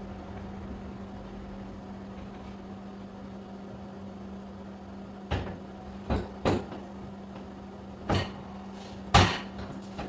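Hard motorcycle saddlebag and its hardware being handled and fitted back onto the bike: about five sharp knocks and clunks in the second half, the loudest near the end, over a steady low hum.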